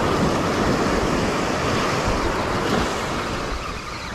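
Small ocean waves breaking and washing up a sandy beach: a steady rush of surf that swells in the first half and eases off near the end.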